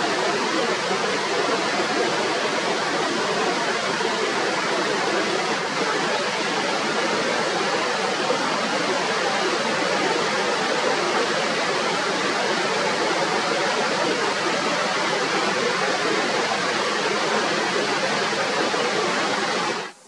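Whitewater river rapids rushing over rocks, a steady, loud, even wash of water noise with no change in level.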